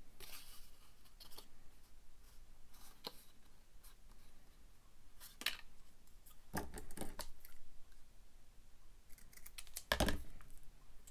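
Scissors snipping paper in a few separate cuts, with paper being handled between them; the loudest snips come past the middle and near the end.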